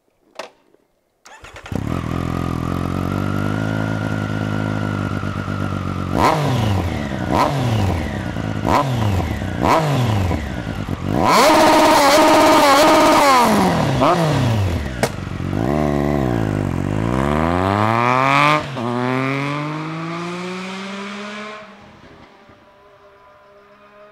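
A 2020 Triumph Street Triple RS 765 cc inline three-cylinder with an Akrapovic exhaust starts about a second and a half in and idles. It is revved in a run of sharp throttle blips and then held at high revs for a few seconds. It then pulls away, rising in pitch, drops once at a gear change, rises again and fades as it rides off.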